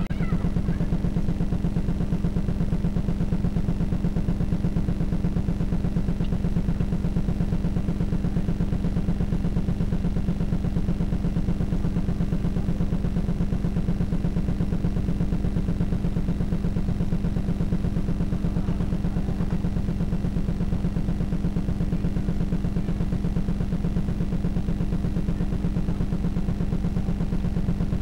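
Loud steady low electrical buzz with a fast, even flutter: a hum on the old home-video tape's sound track that drowns out any sound of the scene.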